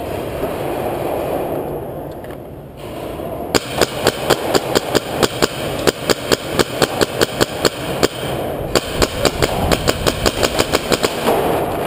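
Paintball markers firing rapid strings of shots, about four a second, in an underground cave. The shooting starts about three and a half seconds in and breaks off briefly about eight seconds in. Before it there is a steady rushing background noise.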